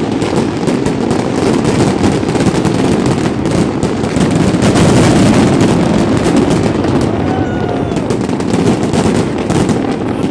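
Fireworks display going off in a dense, continuous barrage of bangs and crackling.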